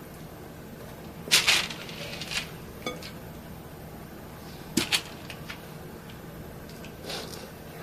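Metal kitchen tongs clicking and clinking on a parchment-lined baking tray as marinated chicken drumsticks are set down one at a time. There are about five short, sharp clicks, one with a brief metallic ring, over a faint steady hum.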